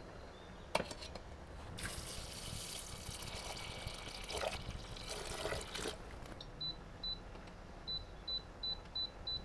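A knock about a second in, then water poured in a stream into a stainless steel pot of red kidney beans for about four seconds, filling it. Then a run of short, high beeps, about seven of them, from the glass hob's touch controls as the heat is set to minimum.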